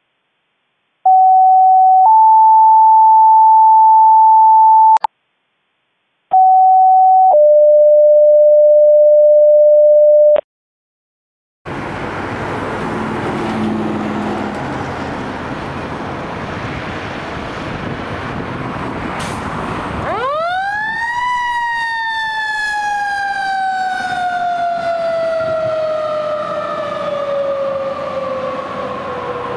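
Two-tone dispatch alerting tones sound twice, each a short steady tone followed by a longer one at a different pitch. Then the fire engine's motor and road noise run, and about twenty seconds in its mechanical siren spins up sharply to a peak and slowly winds down.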